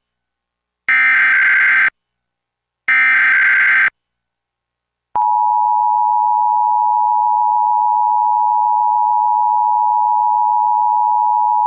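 Emergency Alert System SAME header: two buzzing data bursts about a second long and a second apart. After a short gap, the two-tone EAS attention signal (853 and 960 Hz) starts about five seconds in and holds steady, announcing a required monthly test.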